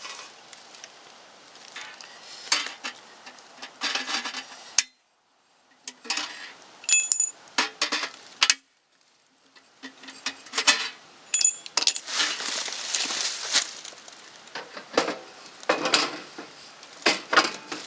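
Sheet-metal parts of an electrical breaker panel being handled and worked loose: irregular clicks, scraping and rubbing, with a few short bright metallic clinks that ring briefly.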